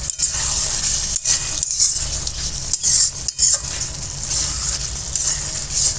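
Chicken frying in curry masala in a metal kadai, sizzling steadily, while a metal spoon stirs it and scrapes against the pan. The chicken is being cooked until its water comes out into the masala.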